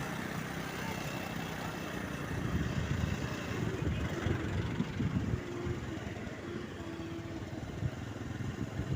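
Motor vehicle engine running with a low rumble amid road traffic noise, swelling somewhat a few seconds in.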